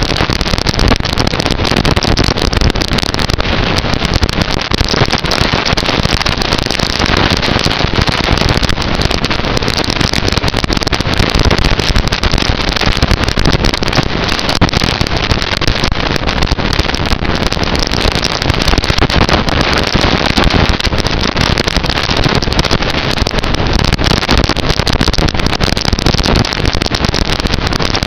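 Loud, steady crackling noise with no tone or voice in it: a recording whose sound has gone bad.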